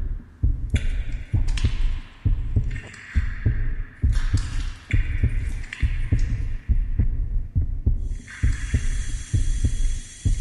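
Heartbeat sound effect: a steady run of low, deep thumps, with wet hissing noise above them that grows stronger about eight seconds in.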